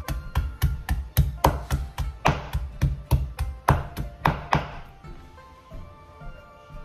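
Chinese cleaver slicing peeled ginger on a wooden cutting board, each stroke a sharp knock of the blade on the wood, about three a second in a steady rhythm; the chopping stops about five seconds in.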